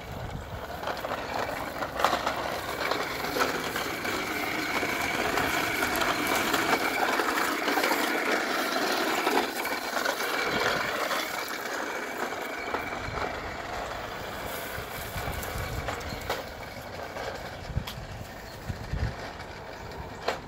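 A plastic toy push lawnmower rolling over paving stones and concrete, making a continuous clatter that is loudest in the middle and eases toward the end.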